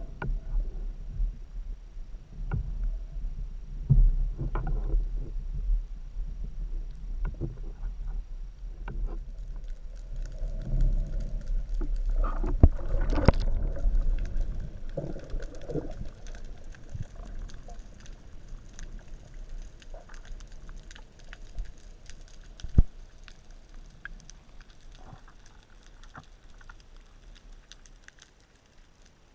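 Underwater sound picked up by a speargun-mounted camera: water sloshing and rumbling against the housing with irregular knocks as the spearfisher moves near the surface, fading to a quiet hiss with faint scattered clicks as he dives down along the reef.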